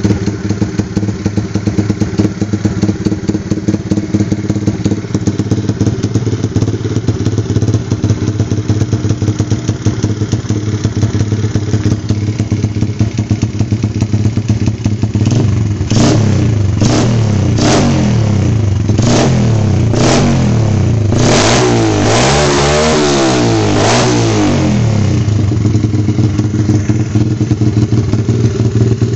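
Honda CRF50 pit bike with a BBR 106cc big-bore single-cylinder four-stroke engine, breathing through a BBR D-Section exhaust with its quiet core insert removed. It idles steadily, then a little past halfway it is revved in a string of about eight quick throttle blips, the longest near the end of the run, before settling back to idle.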